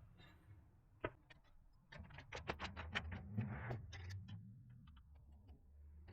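Faint, irregular light clicks and taps from handling a bike wheel and tire: one click about a second in, then a quick flurry of clicks for a couple of seconds.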